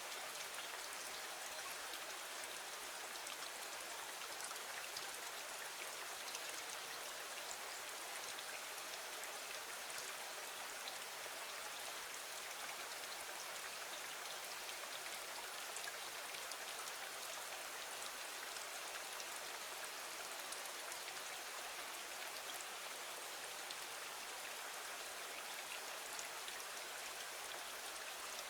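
Steady rain falling against a window, an even hiss with fine ticks of single drops, unchanging throughout.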